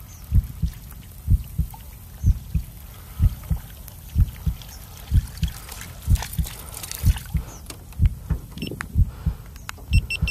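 A heartbeat sound effect: deep double thumps (lub-dub) repeating about once a second, laid over the faint sound of open water.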